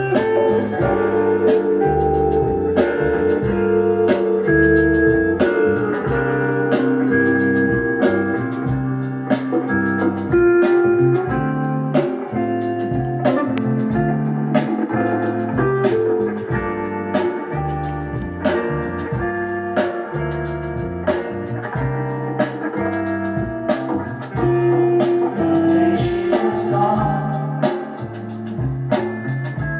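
Blues-style music with guitar, bass and a steady drum beat.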